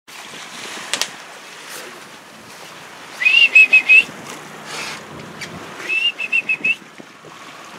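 Bald eagle calling: two quick series of high, piping chirps, about five notes each, the first about three seconds in and the second about six seconds in. A steady hiss runs underneath, and there is a single sharp click about a second in.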